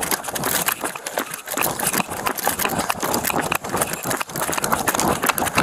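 Running footsteps on asphalt with rifle and gear rattling and clothing rubbing against a body-worn microphone, as quick irregular thumps and knocks.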